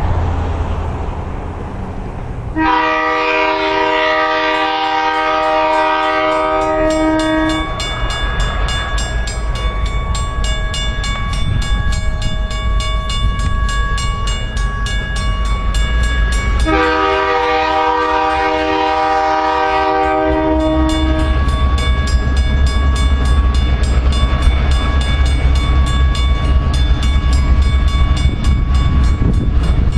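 Diesel freight locomotives (EMD GP38-2 and GP9RM) approaching. A multi-note locomotive air horn sounds two long blasts, about 3 and 17 seconds in, each around five seconds long, over the low rumble of the diesel engines, which grows louder near the end as the locomotives come close.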